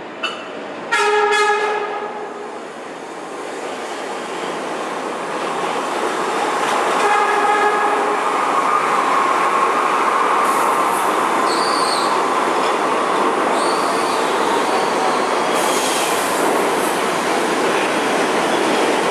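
New York City subway train sounding its horn in a blast of about a second as it approaches, then a shorter, fainter blast some six seconds later. The train then runs into the station with a rising rumble of wheels on rail and brief high wheel squeals.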